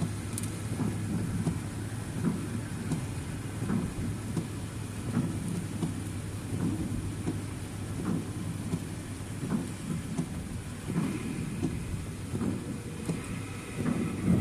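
Car driving in the rain: a low, uneven rumble of road and engine noise with rain on the car and faint scattered ticks of drops.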